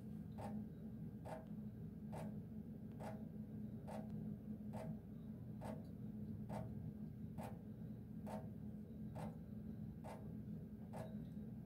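Water dripping from a kitchen faucet spout into a stainless steel sink: short, regular plinks, a little more than one a second, over a steady low hum.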